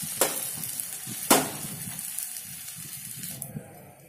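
Paniyaram batter sizzling in ghee in the cups of a kuzhi paniyaram pan, the hiss fading out about three and a half seconds in. Two sharp knocks about a second apart near the start, the second the loudest.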